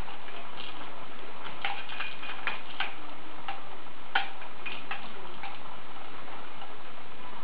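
Plastic rings and toys hanging from a baby play gym clacking and rattling as an infant bats at them: a run of irregular light clicks from about one and a half to five and a half seconds in, the sharpest just after four seconds, over a steady background hiss.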